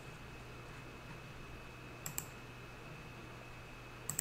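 Computer mouse clicked twice, each a quick double tick of press and release, about two seconds in and again near the end, as a right-click menu is opened and Delete is chosen. A faint steady hum and a thin high whine run underneath.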